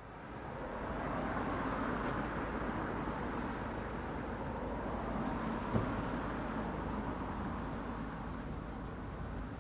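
Town-centre street ambience: a steady wash of traffic noise that fades in at the start, with one brief knock about six seconds in.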